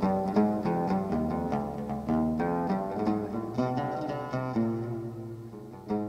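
Instrumental background music of plucked string notes playing a melody over low bass notes.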